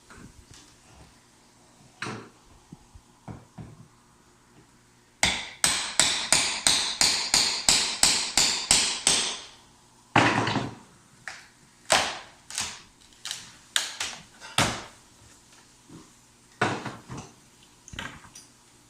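Hammer blows: a few scattered knocks, then a quick steady run of strikes at about four a second for roughly four seconds, then single blows spaced a second or so apart.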